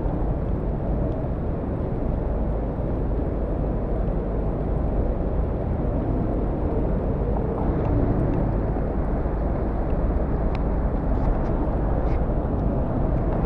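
Steady city street noise in heavy rain: traffic running on wet roads, with a few faint ticks.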